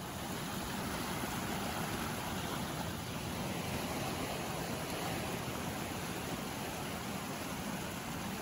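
Small sea waves washing up and draining back on a sand beach: a steady hiss of surf.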